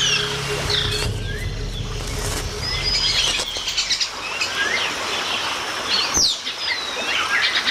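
Tropical rainforest ambience: many birds calling at once with chirps, gliding whistles and a few rapid trills, over a low steady hum that fades out about halfway through.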